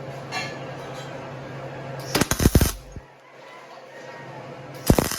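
MIG welder laying two short tack welds on steel plate, each a half-second burst of sputtering arc crackle: the first about two seconds in, the second near the end.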